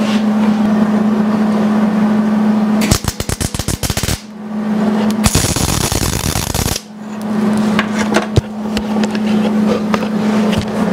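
MIG welder arc crackling as the sheet-metal hat dome is welded on: a stuttering, crackling burst about three seconds in, then a steady sizzling weld of about a second and a half near the middle. A steady low hum fills the gaps between the welds.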